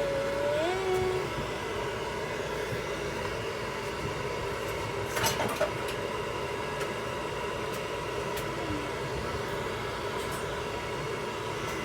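Hair dryer blowing steadily, a constant whir with a few steady tones in it, drying a prairie dog's fur; a few brief clicks about five seconds in.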